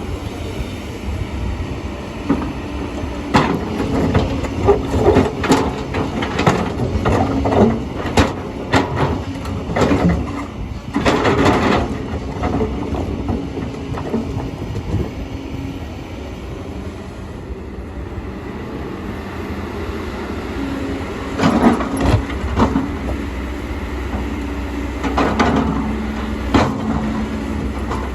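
Kobelco excavator running under load, with its diesel engine and hydraulics working as the bucket moves stones. Two spells of sharp clanks and rock clatter come from the bucket and stones striking and scraping, one in the first half and another near the end.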